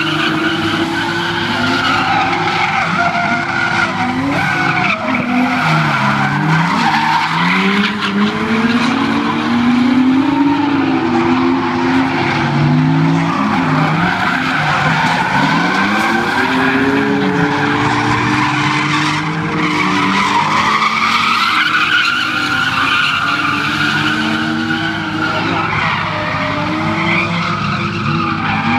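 Drift cars sliding through a course, engines revving hard with the pitch rising and falling again and again as the drivers work the throttle, over continuous tyre squeal.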